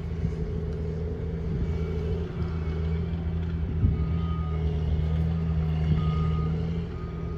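A vehicle engine runs at a steady low drone. From about halfway through, a reversing alarm beeps about three times with a single high tone.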